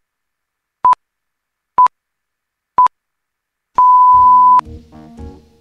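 Countdown of short electronic beeps at one pitch, about one a second, three of them, then a longer, louder beep of the same pitch lasting almost a second, in the manner of radio time-signal pips. Music with bass and keyboard notes begins right after the long beep.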